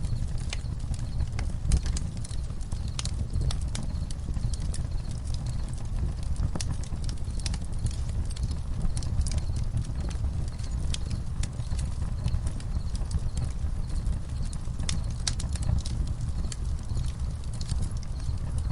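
Campfire crackling: irregular sharp pops and snaps of burning wood over a steady low rumble.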